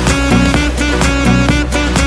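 Upbeat instrumental music with a steady beat, guitar and a sustained bass line.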